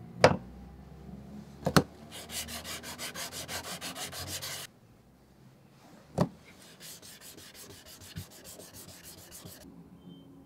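Metal vise jaw plate rubbed back and forth on sandpaper to flatten it, in quick even strokes about eight a second: a louder run for two or three seconds, then a fainter run. Three sharp knocks, the loudest right at the start, one just before the first run and one between the runs.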